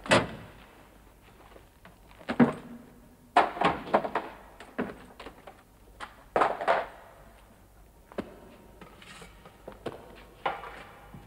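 Irregular dull thunks and knocks from a steel office cabinet being opened and objects on its shelves handled, about a dozen separate hits in a small room.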